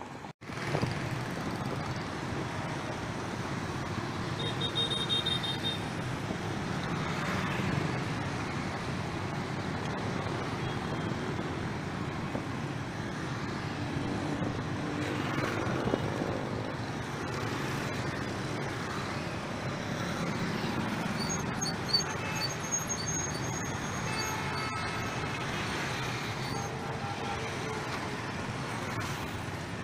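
Dense city traffic, a stream of motor scooters with some cars, running steadily past, with a sharp knock about three-quarters of the way through.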